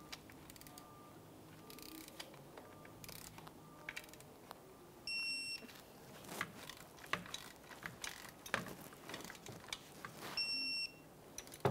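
Electronic torque wrench tightening the transfer case shift motor's mounting bolts to 12 ft-lb: light ratchet clicks, and two half-second beeps, about five seconds in and near the end, each signalling that a bolt has reached the set torque.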